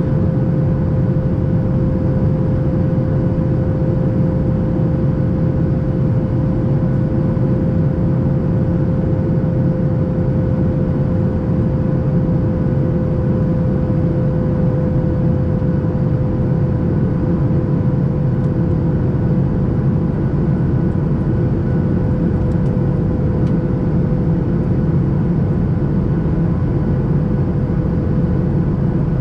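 Cabin noise of a Boeing 737 MAX 8 climbing out after takeoff: the steady rush of airflow and its CFM LEAP-1B engines heard from a window seat, with a steady mid-pitched tone running through it.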